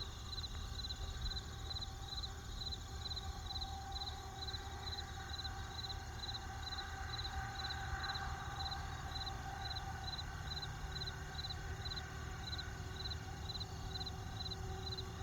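Crickets chirping in a steady, even rhythm, about two to three chirps a second, over a low, steady rumble.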